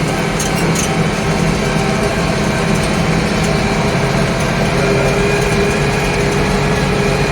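Tractor engine running steadily while driving a PTO-powered round baler picking up hay, a constant mechanical hum with a high whine; a further steady tone joins about five seconds in.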